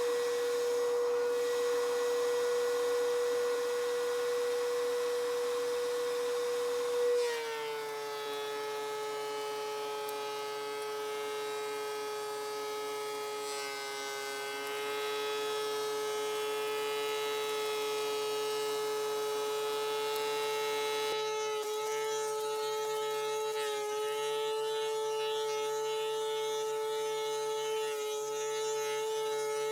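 DeWalt 735X thickness planer running with a steady high whine. About seven seconds in, a board goes into the three-knife cutterhead and the pitch drops slightly under the load as the board is planed, continuing to the end.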